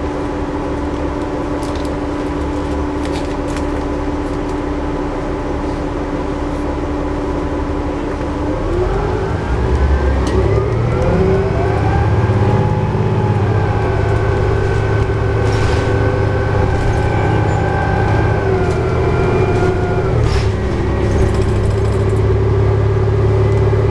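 Cummins ISL9 diesel engine of a New Flyer D60LFR articulated bus, heard from inside the cabin. It idles with a steady hum while the bus stands. About nine seconds in the bus pulls away and the engine rises in pitch as it accelerates, then eases off about twenty seconds in.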